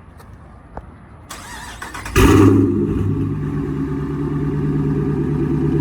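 Dodge Charger R/T's 5.7-litre Hemi V8, run with no catalytic converters and 5-inch exhaust tips, starting up: about a second of cranking, then it catches with a loud flare about two seconds in and settles into a loud, steady idle.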